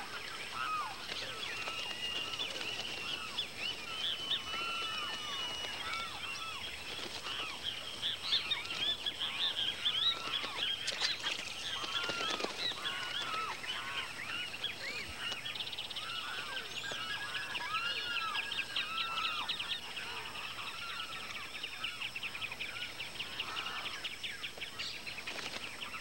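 A dense chorus of many birds calling, with many short calls that rise and fall in pitch, overlapping one another.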